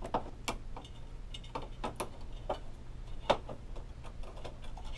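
Scattered light clicks and taps from handling an Epson WF-3640 printer's flat ribbon-cable bundle and metal bottom rail, the sharpest about three seconds in, over a low steady hum.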